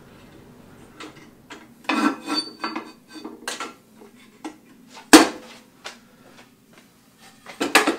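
Metallic clicks and clunks of a benchtop jointer's fence being adjusted and the board handled, with the machine switched off. There is a loud knock about five seconds in and another just before the end.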